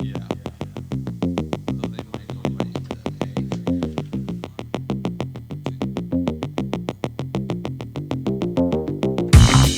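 Electronic intro music: a fast, even synthesizer pattern with a shifting bass line, joined by heavier beats near the end.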